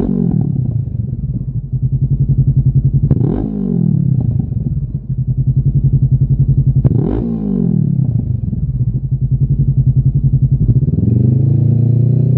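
Honda CB500F's parallel-twin engine running through a Lextek OP16 stainless aftermarket silencer: it idles with a pulsing note, is blipped sharply three times, the revs jumping and dropping straight back, and near the end is revved up and held climbing.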